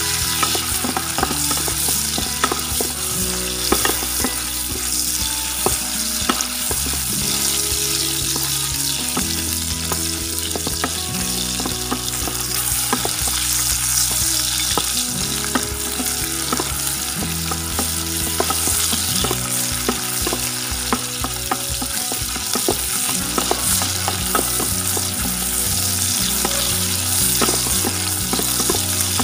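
Shiitake mushrooms, shallots and garlic sizzling in hot oil while being stir-fried with a wooden spatula, with frequent light scrapes and clicks of the spatula against the pan. The aromatics are being fried until fragrant and the mushrooms soften.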